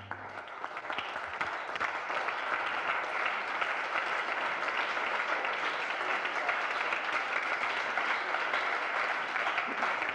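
Audience applauding steadily in a hall, starting as the dance music cuts off just after the start.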